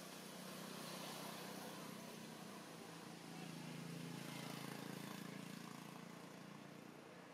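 Faint low hum of a distant motor engine, swelling around the middle and easing off toward the end, over a steady outdoor hiss.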